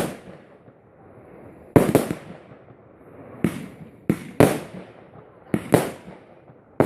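Fireworks bursting: about eight sharp bangs at irregular intervals, some coming in quick pairs, each trailing off in a short echo.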